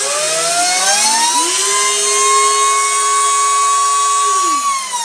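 Miniature belt-driven two-stage Tesla pump and turbine rig, powered by a 12-volt brushed DC motor, whining as it spins up. A rising whine levels off into a steady high tone, and a second, lower tone rises and holds about a second in. Both fall away near the end as the rig spins down.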